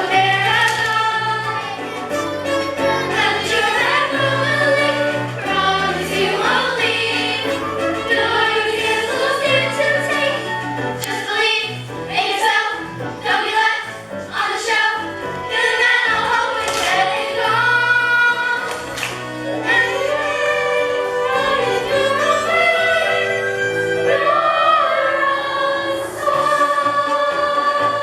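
A chorus of voices singing a musical-theatre number together over instrumental accompaniment with a moving bass line.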